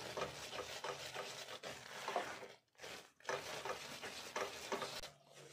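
Silicone spatula stirring and scraping thick, grainy sugar syrup around a non-stick pan, with two short pauses past the middle. This is boiled sugar syrup being worked off the heat as it begins to crystallize into boora.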